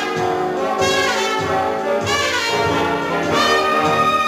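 Jazzy film-musical orchestra led by brass, with trombones and trumpets playing held notes and phrases that slide in pitch.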